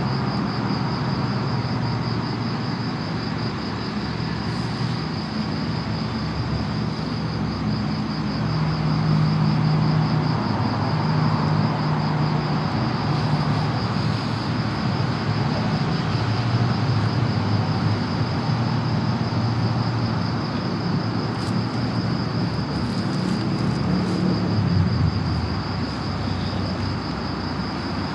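Insects chirring in a steady, fast-pulsing high trill over a low, rumbling hum that swells and fades.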